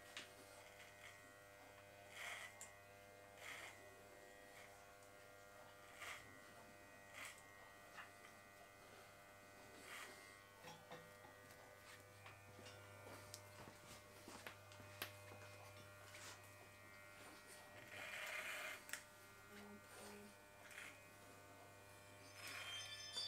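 Corded electric hair clippers buzzing steadily and faintly as they trim a beard and the hair at the neck.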